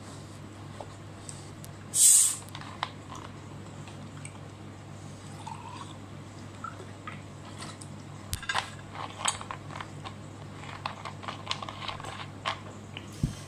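Scattered small clicks and knocks of tableware and a bottle being handled at a table, coming thicker in the second half, with one short loud hiss about two seconds in over a low steady hum.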